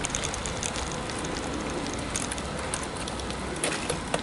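Bicycle rolling along a rough, patched asphalt road: steady tyre and wind noise with scattered small clicks and rattles, and a few sharper clicks near the end.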